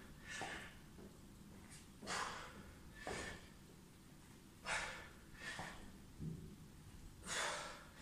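A man's sharp, forceful exhalations from the effort of repeated squats, about seven puffs of breath at roughly one a second.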